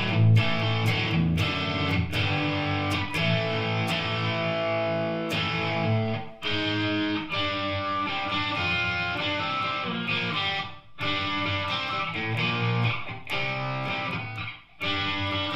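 ESP LTD EC-1000 electric guitar played through an amp with an overdriven, distorted tone: picked riffs and held chords, breaking off briefly three times.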